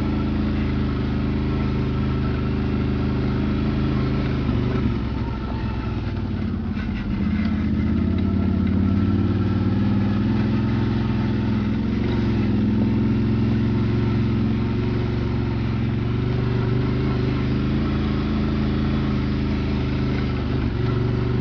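Quad bike (ATV) engine running as it rides a muddy forest trail. It eases off briefly about five seconds in, then opens up again and runs on steadily.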